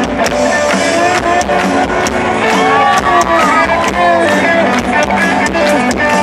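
Mexican rock band playing live through a concert PA, heard from within the crowd: electric guitars over bass and drums with a steady beat. A few seconds in, a lead guitar line bends up and down in pitch.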